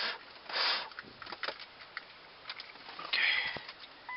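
Handling noises: scattered clicks and scuffs, with two brief hissing bursts about half a second in and again after three seconds. No engine is running.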